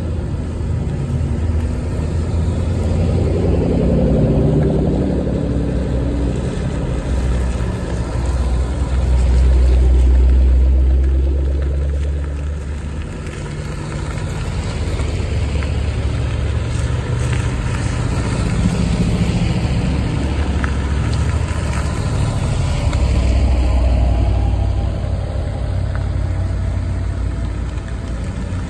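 A line of Shelby and Ford Mustang V8 sports cars driving slowly past, one after another, their exhausts rumbling. The sound swells and fades as each car nears and goes by, with the loudest pass about ten seconds in.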